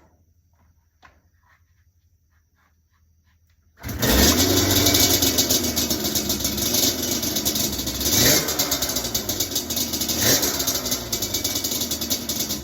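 Yamaha Banshee's 350 cc two-stroke twin engine catches about four seconds in and runs loud and raspy, with two quick throttle blips that rise and fall in pitch.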